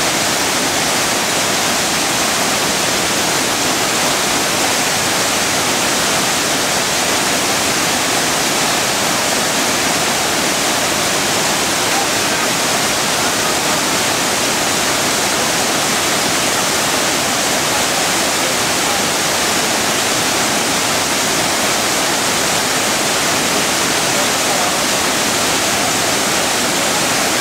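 Roncador waterfall: the steady, loud rush of falling water.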